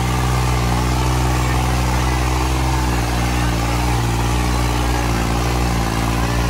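New Holland 3630 tractor's three-cylinder diesel engine running steadily and hard under heavy load, dragging a disc harrow through tilled soil.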